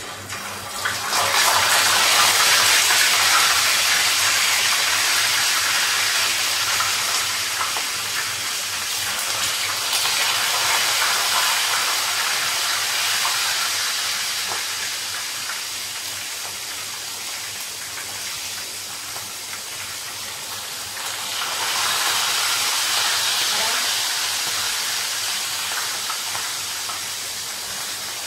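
Raw chicken pieces frying in hot oil in a pan: a loud sizzle that starts about a second in as the chicken goes into the oil, ebbs a little and swells again about two-thirds of the way through.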